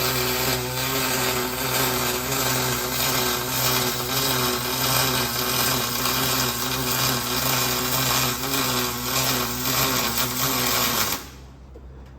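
Welding arc laying a bead on aluminium: a steady electric buzz over crackle. Its pitch settles lower at the start, and it cuts off suddenly about eleven seconds in when the arc is broken.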